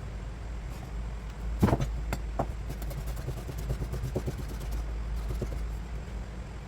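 Knife work on a sea bass on a cutting board: a sharp knock about a second and a half in, then a few lighter clicks and taps, over a steady low hum.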